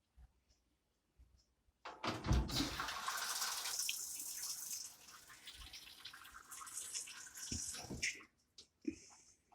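Water rushing in a Whirlpool washing machine. It starts suddenly about two seconds in, loudest for the first few seconds, then weaker, and cuts off after about six seconds, followed by a few light clicks.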